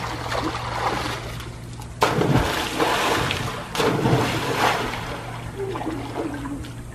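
A child jumps into a swimming pool: a sudden splash about two seconds in, then churning, sloshing water for a couple of seconds as the water settles.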